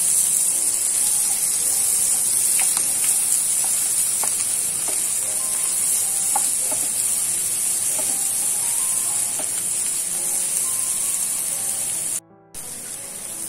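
Eggs, salted fish and sambal sizzling steadily in hot oil in a non-stick frying pan, with a wooden spatula scraping and tapping as they are stirred. The sizzle drops out briefly near the end and comes back quieter.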